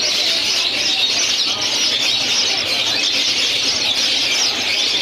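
A flock of strawberry finches (red avadavats) chirping continuously, many short high calls overlapping into a steady chatter.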